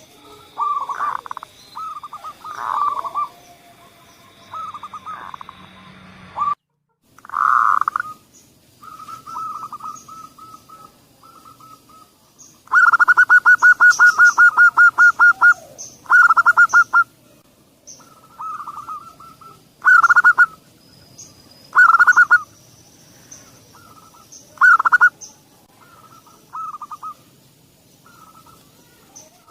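Zebra dove (perkutut) cooing: bursts of quick, staccato notes all at about the same pitch, with a long rapid run about thirteen seconds in and several shorter bursts after it. The sound drops out completely for a moment about six and a half seconds in.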